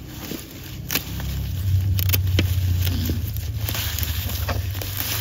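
Garden pruning shears snipping through old strawberry leaves and runners: a few sharp clicks, three or four in quick succession about one to two and a half seconds in. Under them, a steady low rumble grows louder after the first second and a half.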